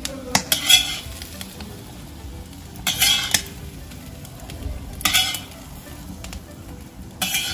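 Metal spatula scraping fried potatoes out of a hot cast-iron kazan: four short scrapes about two seconds apart. The potatoes sizzle in the oil between them.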